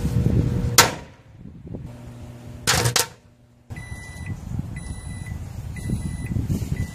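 Microwave oven running with fireworks inside, a sharp bang about a second in and a double bang about three seconds in as they go off. Then the microwave's end-of-cycle signal beeps four times, about a second apart: the cooking is done.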